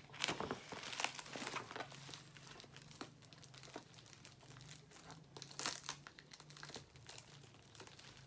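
Parcel packaging crinkling and rustling as it is handled and worked open, in irregular scattered crackles.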